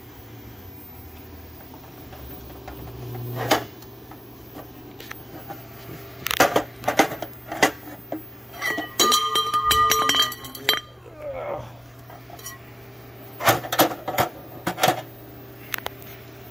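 Aluminium exhaust tubing knocking and clanking against a steel angle-iron jig and welding table as it is set in place by hand. There are several clusters of sharp knocks, and in the middle the metal rings on for about two seconds, over a low steady hum.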